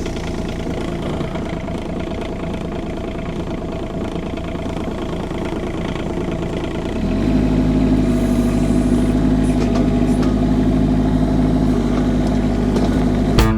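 Kubota K008-3 mini excavator's diesel engine idling just after starting. About seven seconds in it steps up and runs louder and steadier.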